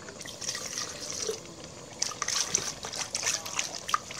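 Rice wine poured from a bowl into a pot of simmering fish curry, trickling and splashing, with many sharp irregular splashes and drips from about halfway through.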